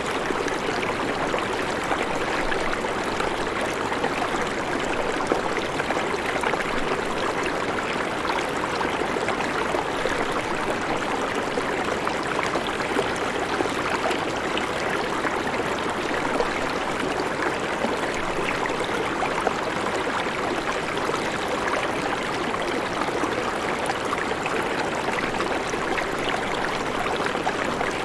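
A shallow, rocky river rushing past in a steady, even flow of water.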